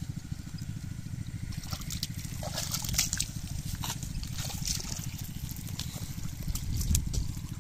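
Shallow muddy water sloshing and trickling as feet and hands move through it, with the loudest splashes about three seconds in and again near the end, over a steady low hum.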